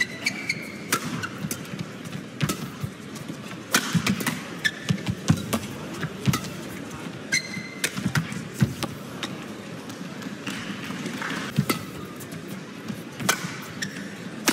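Badminton rally: sharp racket strikes on the shuttlecock at irregular intervals, with thuds of footfalls and a few brief shoe squeaks on the court floor.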